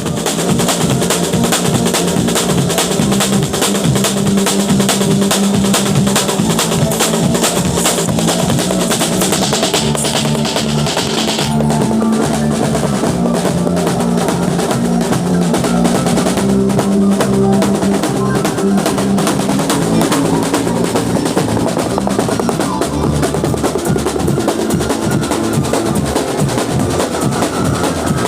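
Live band music driven by drums: a fast, dense beat with rolls over sustained low melodic notes. A bright high shimmer drops away about eleven seconds in.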